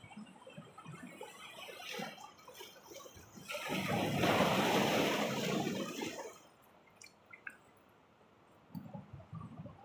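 Sea wave washing in among rock boulders, swelling about three and a half seconds in and dying away about three seconds later. Small splashes and trickles are heard around it.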